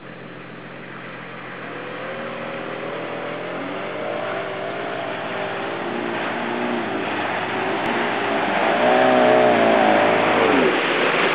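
A four-wheel drive pushing through deep water, its engine revving in surges that rise and fall in pitch over the rush and slosh of its bow wave. The sound grows louder as it comes close, peaking as it passes, and the engine note drops away near the end.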